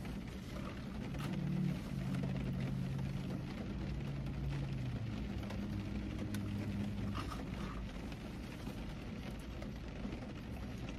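Steady low hum and hiss inside a car's cabin, with a few faint clicks about six and seven seconds in.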